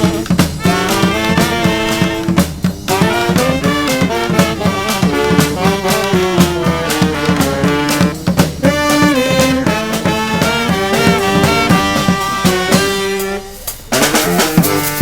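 Live street brass band playing: horns carry a melody over steady drum hits. Near the end the band drops off briefly, then comes back in loudly with crashing percussion.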